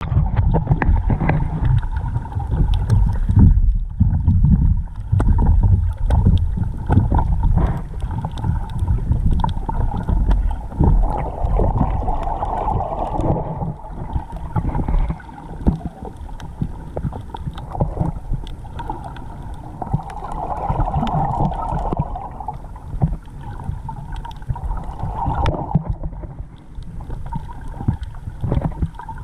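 Muffled underwater sound of moving water picked up by a submerged camera: a heavy low rumble with many scattered clicks and crackles, louder in the first half.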